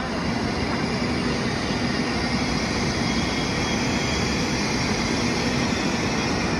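Subway train running steadily between stations, a continuous rumble of wheels on rail with a steady hum.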